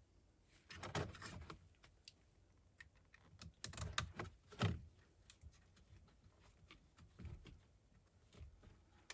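Irregular light clicks and knocks of a hand socket tool and small screws against the plastic steering column trim as the screws are worked down, loudest a few seconds in.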